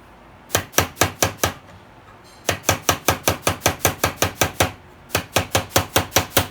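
Hammer tapping a freshly set rivet on a car door lock mechanism to flatten its head: rapid sharp metallic strikes, about five a second, in three runs with short pauses between.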